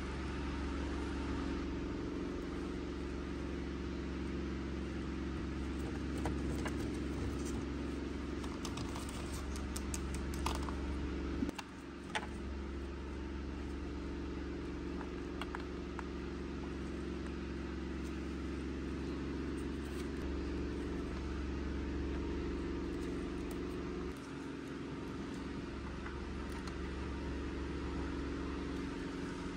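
A steady low hum with a fixed pitch runs underneath. Over it come faint, sparse clicks and taps of small plastic toy pieces being handled and set into a plastic playset, mostly in the middle of the stretch.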